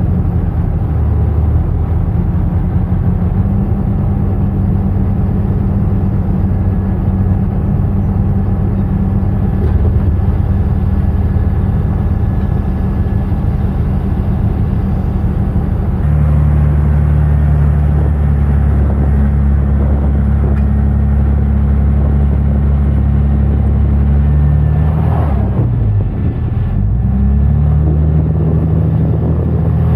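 Tractor engine running steadily. Its note shifts about halfway through, then briefly drops and comes back up a few seconds before the end.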